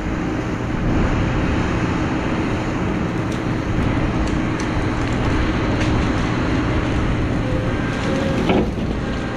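Tracked excavator's diesel engine running steadily under work, with a few knocks and cracks near the end.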